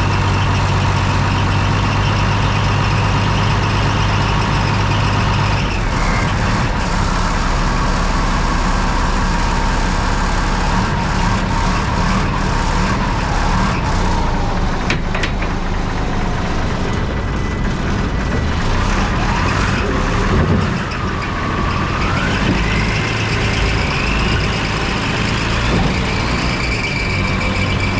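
5-ton 6x6 military truck's turbocharged multifuel diesel engine running steadily. Its low drone changes about a fifth of the way in, and a whine rises and falls in pitch about two-thirds of the way through.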